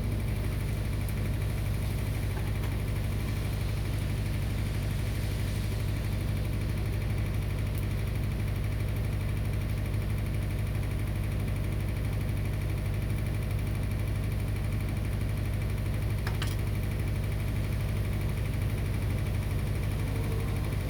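Steady low hum that holds unchanged throughout, with one faint click about sixteen seconds in.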